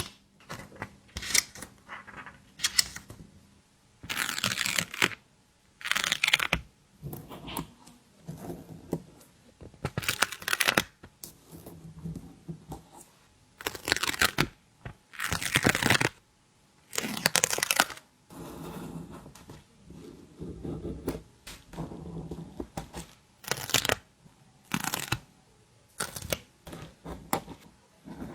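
Stickers peeled off their backing sheet and handled: a string of short, irregular peeling sounds with brief pauses between them.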